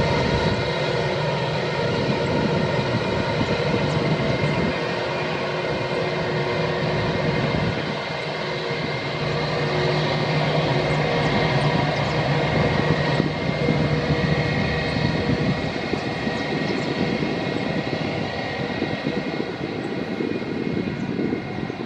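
Airbus A319 airliner's twin jet engines running at low taxi power as it taxis, a steady whine with several held tones over a rushing hiss.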